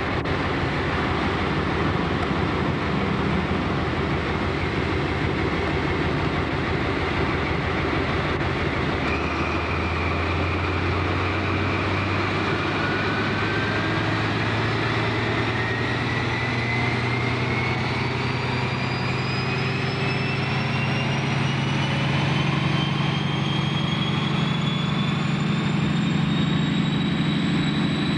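Class 43 HST power car's Paxman Valenta diesel engine working up to power as the train pulls away. A low engine drone builds about nine seconds in, and a turbocharger whistle climbs steadily in pitch through the rest.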